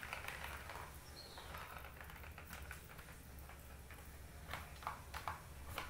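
Bengal kittens playing at a plastic circular track toy on a wooden floor: faint scuffing and light patter of paws, with several sharp clicks and taps from paws striking the plastic track near the end.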